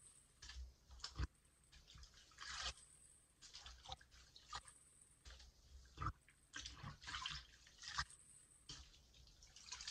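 Wet, soapy sponges being squeezed and kneaded by hand in a sink of water: irregular squelching squishes with dripping and sloshing water, roughly one squeeze every second.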